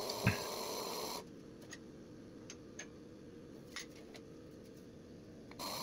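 Manual tube bender working a bend into round metal tubing: a few faint, irregular clicks from the bender over low room noise, with one short knock just after the start.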